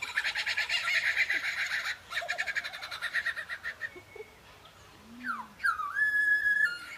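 Male superb lyrebird singing its display song: two bursts of rapid, pulsed chattering, then after a short pause a couple of downward-sweeping whistles and a held whistle near the end.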